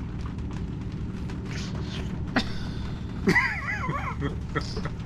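A steady low hum, with a sharp click a little over two seconds in. Just after three seconds comes a short, wavering high-pitched squeal of a woman's giggle.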